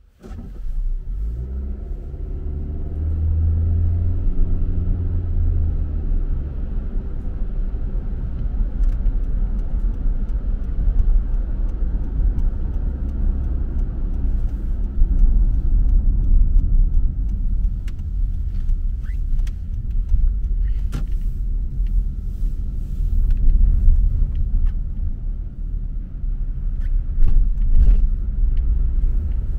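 Car driving on a wet road, heard from inside the cabin. Over the first few seconds the engine rises in pitch as the car accelerates, then settles into a steady low road rumble with tyre hiss. There are a few sharp clicks or knocks in the second half.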